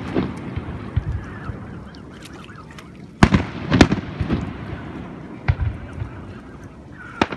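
Aerial firework shells bursting: a pair of sharp bangs about three seconds in, each followed by a low rumble. Lighter bangs come about a second in, at five and a half seconds and near the end.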